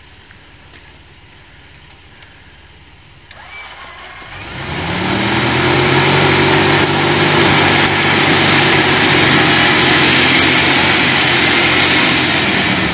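Jeep Wrangler's engine revving up about four seconds in and held at high revs under load as it claws up a snowy slope on its winch line, with a loud rushing hiss of the tyres spinning in snow; it eases off near the end.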